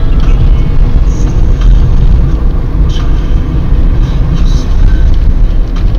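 Car driving at highway speed, heard from inside the cabin through a dashcam's microphone: a loud, steady low rumble of road and engine noise, with a few faint clicks.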